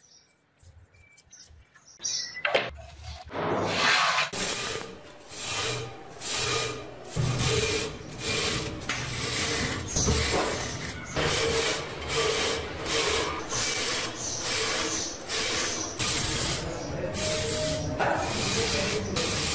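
Steel wire brush scrubbing rust off an old steel adjustable wrench in rapid back-and-forth strokes, about three strokes every two seconds. It starts about two seconds in, after a faint stretch.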